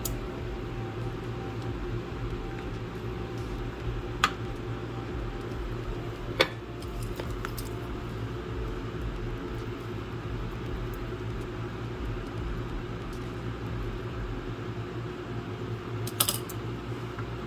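Steady low hum like a fan motor, with a few light clicks and taps, about four, six and sixteen seconds in, as a soldering iron and a roll of solder are handled on a workbench.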